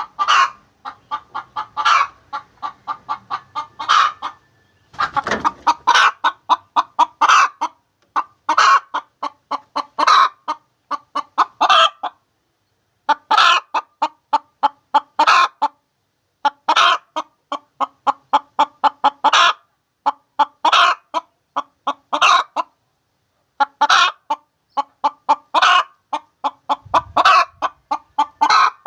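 A domestic hen cackling its egg song, the call given around laying an egg: runs of quick, short clucks, each climbing to a louder, drawn-out squawk, repeated every second or two with a few brief pauses.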